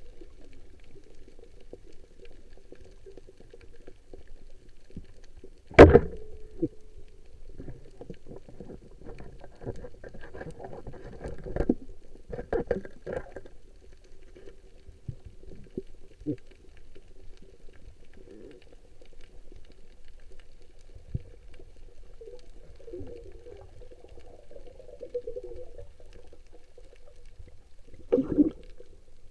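Water sloshing and gurgling, with a sharp loud knock about six seconds in, a cluster of knocks around twelve seconds and another loud splash near the end.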